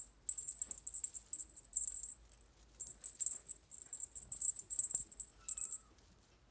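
A kitten's claws scratching and catching on a quilt and a rattan chair rim as it clambers about: irregular, crackly, rustling scratches in short flurries with brief pauses.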